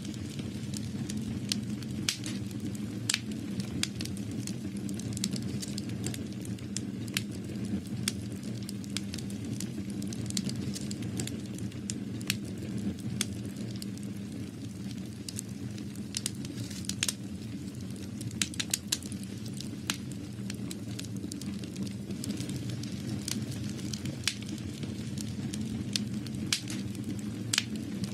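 Irregular sharp crackles and clicks over a steady low rumble.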